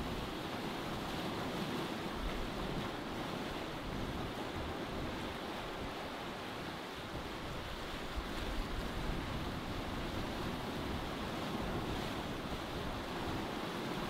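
Sea water rushing along the hull of a sailboat under way, with wind buffeting the microphone: a steady noise without breaks.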